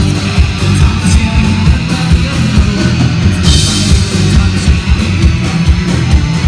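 Live rock band playing loud: electric guitars, bass guitar and drum kit, with a cymbal crash about three and a half seconds in.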